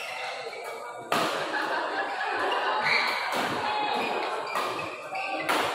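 Badminton rally: rackets strike the shuttlecock in a series of sharp smacks, the loudest near the end. Over them, spectators' voices and shouting, getting louder about a second in.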